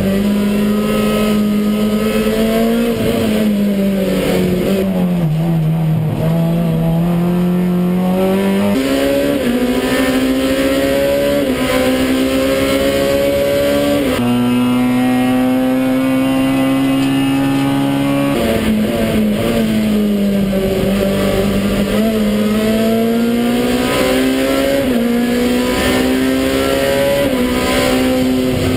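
Touring race car's engine heard from inside the cockpit under racing load. The revs fall and climb as the car brakes and accelerates, with several sudden jumps in pitch at gear changes.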